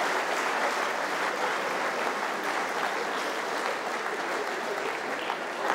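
Audience applauding, dense and steady, slowly fading.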